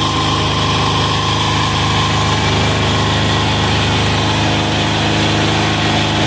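186FA single-cylinder air-cooled diesel engine running at a steady speed, fed filtered waste vegetable oil through a hose drawn from a cup.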